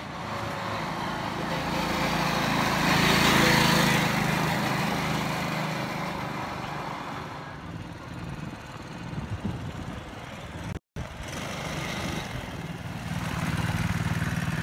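Small engine of a kids' ATV running, getting louder about three to four seconds in as it rides closer, then easing off as it moves away. The sound cuts out for a moment about eleven seconds in, after which the engine runs steadily close by.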